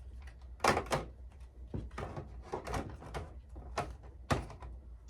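Plastic organizer containers and small items knocking and clattering as they are set in place and shifted around: a string of irregular clicks and knocks, the loudest a little under a second in and another just after four seconds.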